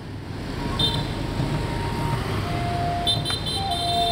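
Busy street traffic of motorbikes and scooters: steady engine and road noise with a few short horn beeps.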